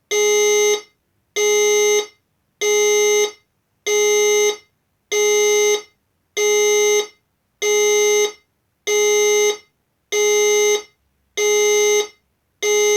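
Fire alarm system sounding its alert tone: a loud, steady-pitched electronic tone pulsing on and off evenly, about three-quarters of a second on and half a second off, signalling that the fire alarm has operated.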